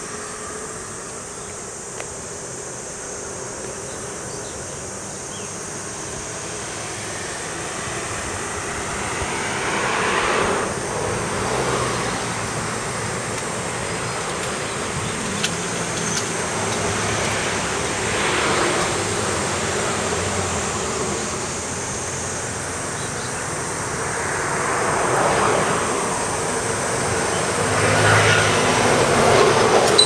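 Nose Electric Railway train running past on the nearby line, its rumble swelling and fading several times over about twenty seconds.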